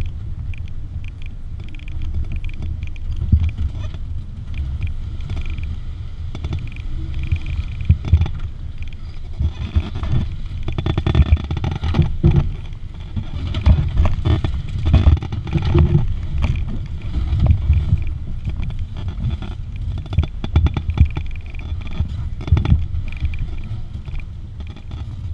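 Open-top off-road vehicle's engine running at low speed on a rough dirt track, with repeated knocks and rattles from the body as it goes over bumps, busiest in the middle stretch.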